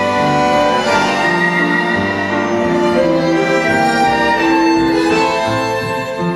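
Live tango orchestra playing: a violin carries sustained melody notes over bandoneons, piano and double bass.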